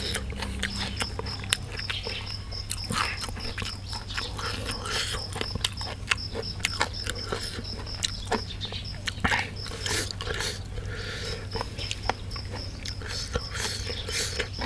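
A person eating: close-up chewing and lip-smacking of beef larb and raw vegetables, with many short, sharp crunchy clicks scattered throughout.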